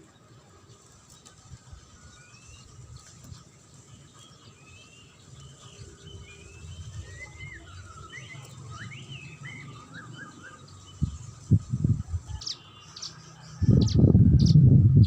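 Songbirds chirping faintly in short rising and falling notes. Near the end, loud low bursts cut in twice and drown them out.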